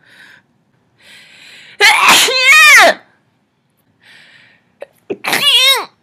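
Two loud, high-pitched outbursts of a woman's voice, each following a breathy intake: a longer one about two seconds in and a shorter one about five seconds in, both with a pitch that bends up and then falls.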